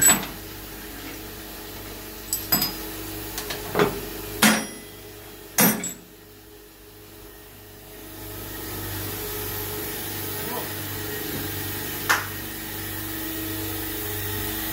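Steady hum of running machine-shop machinery, with several sharp metal knocks and clanks in the first six seconds and one more later; the hum dips quieter for a couple of seconds and comes back.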